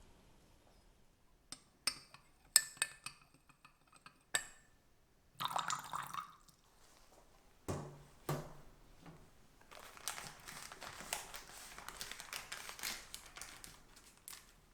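Kitchen utensils and dishes clinking in a quick series of sharp, ringing strikes, then a brief rustle, two soft knocks, and several seconds of dense, rapid scraping.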